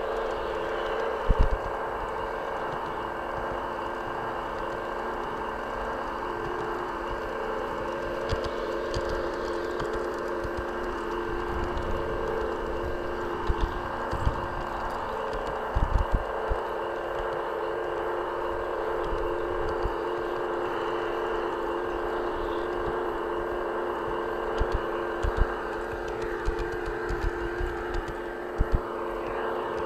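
An LGB G-scale garden train running on its track, heard from a camera riding on the train: a steady whirring hum with rolling rattle. Occasional short low thumps come through, with a cluster near the middle and more near the end.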